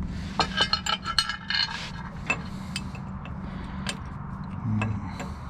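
Metal parts from a GM 10-bolt rear differential, such as carrier shims and bearing parts, clinking and scraping as they are handled. There is a quick cluster of light clinks in the first two seconds, then a few scattered single clinks over a steady low hum.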